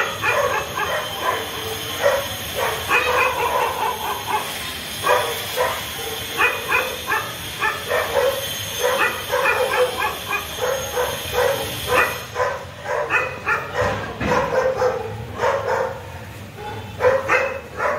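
A dog barking and yapping over and over in short, quick calls.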